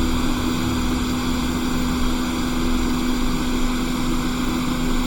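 Small electric blower running steadily: an even whoosh with a constant low hum underneath.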